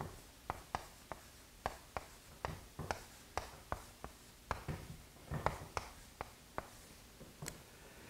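Chalk writing on a chalkboard: a string of short taps and scrapes, about two or three a second, as each character stroke is drawn.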